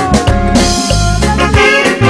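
Gospel reggae-highlife band music: a pulsing bass line and drum beat under a long held melody note that sinks slightly in pitch during the first second or so.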